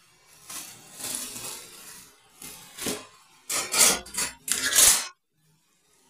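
Clear plastic wrap crinkling and rustling in several bursts as it is pulled open around slices of ham, loudest in the last couple of seconds; the sound cuts off suddenly about five seconds in.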